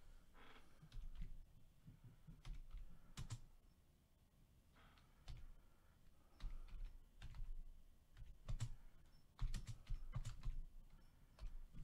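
Faint, irregular clicking and tapping.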